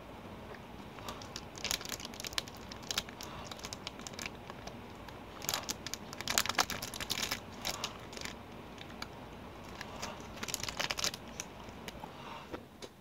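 Cadbury Wunderbar candy bar wrapper crinkling in the hand, in three bursts of crackling about 2, 6 and 11 seconds in.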